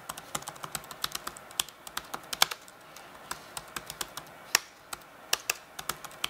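Typing on a computer keyboard: a quick, uneven run of key clicks, with a few keystrokes louder than the rest.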